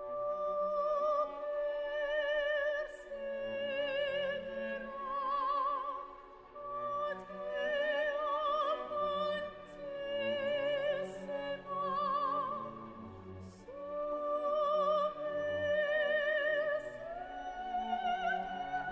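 Operatic singing: a high voice holding long notes with wide vibrato over classical accompaniment.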